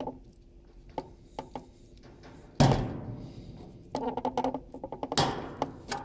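Knocks and clicks of a circuit board and tools being handled on a hard workbench: a few light clicks, a loud ringing knock about two and a half seconds in, a quick rattle of clicks a little after four seconds, and another loud knock about five seconds in.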